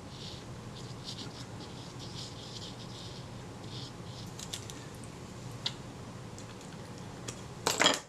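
Light scratching and rustling of small hand work at a bench, likely adhesive being spread over a leatherette piece, with a few faint clicks and a louder short clatter near the end.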